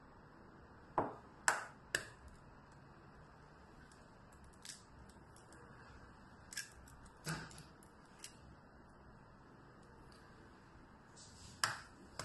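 An egg tapped three times against the rim of a ceramic bowl, sharp cracking knocks about a second apart. Then a few quieter clicks as the shell is pulled apart over the bowl and the halves are put down, and one more sharp knock near the end.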